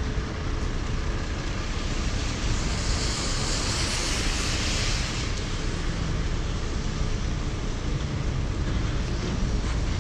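Steady city traffic on a rain-wet street: a low rumble with a constant wet hiss. A brighter hiss swells about three seconds in and fades two seconds later, the sound of tyres passing on the wet road.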